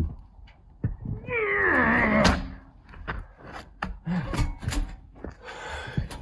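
A heavy log being wrestled onto a portable sawmill: a series of sharp knocks and clunks. About a second in comes a drawn-out strained groan of effort that falls in pitch, with a shorter grunt near the middle.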